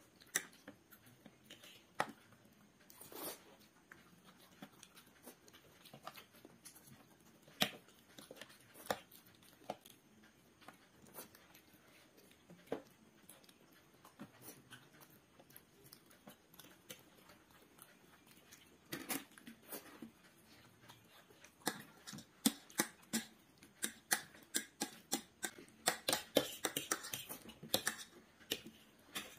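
Metal forks clicking and scraping against ceramic plates in irregular taps, with chewing. The taps come thicker over the last several seconds.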